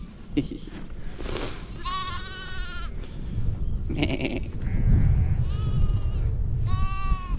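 Lambs bleating several times, some calls long and quavering, over a low steady rumble.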